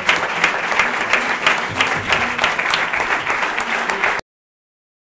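Audience applauding with dense, irregular clapping that cuts off suddenly about four seconds in.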